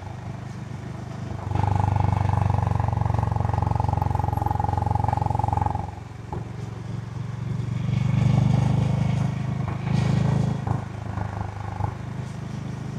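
Honda H'ness CB350's single-cylinder engine through its stock exhaust while riding, the engine note rising and falling with the throttle and dropping away briefly about six seconds in.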